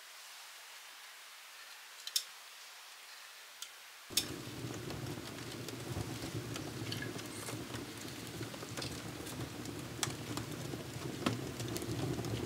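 Freshly lit kindling fire in a wood-burning stove crackling, with scattered sharp pops. About four seconds in, a steady low rushing sound starts suddenly and carries on under the crackle.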